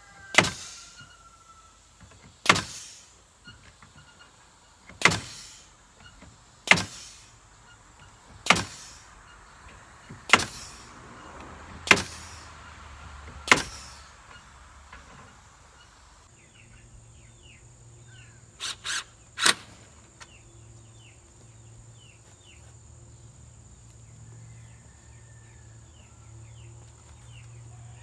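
Sharp single strikes into wood about every two seconds, eight in all, then a quick run of three about halfway through: fasteners going into the boards of a wooden chicken-tractor door. A faint low hum and faint bird chirps follow.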